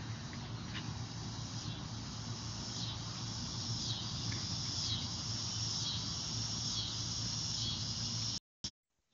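Steady chorus of insects, a high buzzing band that dips and swells about once a second, over low outdoor background noise. It cuts out abruptly near the end.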